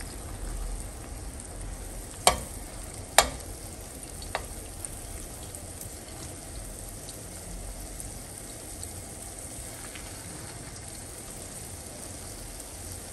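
Spoonfuls of green bean and egg fritter batter sizzling in a pan of hot oil, with a steady crackle. A metal spoon clicks sharply against the pan three times, about two, three and four seconds in.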